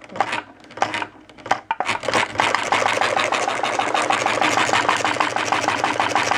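Homemade model Stirling engine running, driving a diaphragm water pump, with a fast, even mechanical clatter that starts about two seconds in after a few separate irregular noises.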